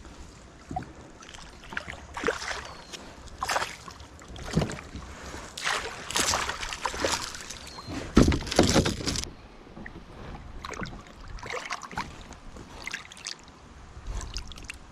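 Water splashing and sloshing around a kayak, in a string of irregular surges about a second apart, the loudest about eight seconds in.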